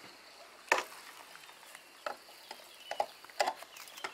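Several sharp, separate knocks and clinks, the loudest about a second in: steel climbing irons biting into and knocking against a wooden utility pole as a lineman steps up it.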